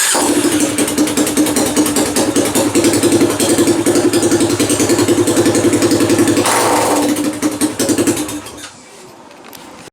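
Yamaha Lander X's 250 cc single-cylinder four-stroke engine running with its muffler removed, a loud, rapidly pulsing open exhaust, which stops about eight seconds in.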